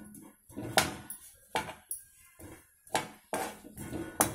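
A metal ladle scraping and clinking against a metal kadai while stirring lumps of jaggery in a little water to melt them into syrup. Sharp knocks come about once a second, irregularly, with softer scraping between.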